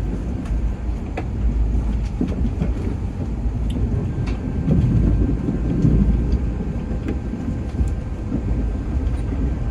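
Passenger train running, heard from inside the car: a steady low rumble of the wheels on the track with a few faint clicks.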